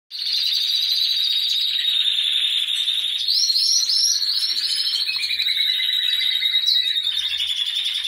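Many caged finches singing together: a continuous high chorus of fast rolling trills, with a few quick rising whistled sweeps about three to four seconds in.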